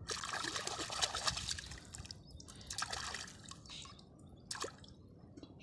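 Water splashing, trickling and dripping as hands dig through shallow marsh water and mud to pull up water-lily tubers. Busiest in the first two seconds, then in shorter splashes.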